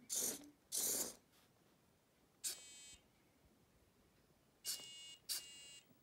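Small electric gear motors on a micro:bit-controlled LEGO rover, run from a phone app in short bursts. There are two quick whirring bursts in the first second, then three short buzzing whines of about half a second each, one near the middle and two near the end.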